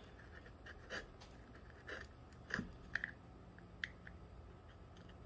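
Hand carving tool cutting into thin eucalyptus bark: a handful of soft, crunchy cuts and scrapes about a second apart.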